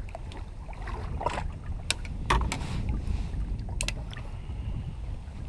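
Low rumble of wind on the microphone and water moving against a small drifting fishing boat, broken by several sharp clicks and knocks of handled gear, the loudest a little over two seconds in.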